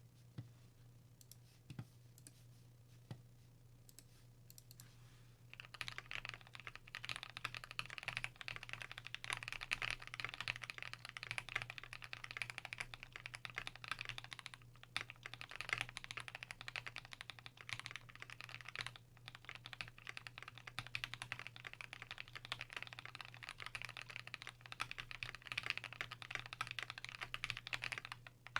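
Custom Monstargears XO V3 mechanical keyboard with lubed Everglide Aqua King V3 linear switches, a brass plate and GMK keycaps being typed on: a few single key presses, then continuous fast typing from about five seconds in, with a couple of short pauses. A faint steady low hum sits underneath.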